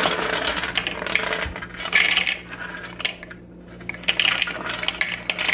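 Roasted hazelnuts being poured into a plastic food processor bowl, hard nuts clattering and rattling against the plastic and the metal blade. The clatter eases briefly about three seconds in, then picks up again.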